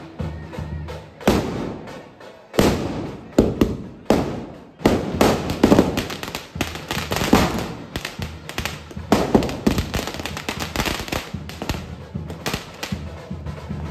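Firecrackers packed inside a burning Ravan effigy going off in irregular loud bangs, some single and some in quick crackling bursts of several.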